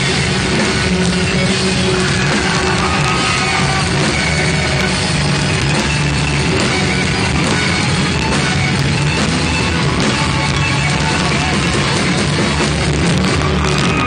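Live rock band playing a loud song with electric guitar, heard from among the audience in a club.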